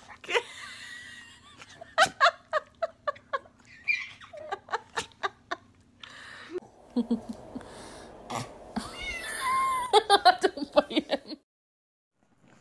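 A cat meowing several times, each call bending up and down in pitch, with short sharp sounds in between. The audio cuts out briefly near the end.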